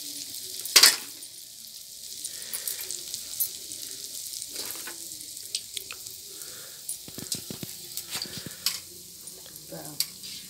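Dudura pitha batter deep-frying in hot oil in an iron kadai, sizzling steadily. A few sharp knocks come from the metal slotted spoon against the pan, the loudest about a second in.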